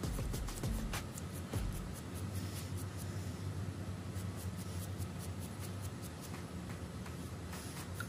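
Old rusty nails and screws being scrubbed by hand to clean off light surface rust: scratchy rubbing with sharp clicks, busiest in the first two seconds, over a low steady hum.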